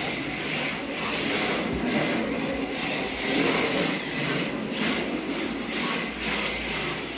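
A 1/10-scale RC drift car being driven: a noisy whirr and scrub that swells and fades irregularly, about once a second.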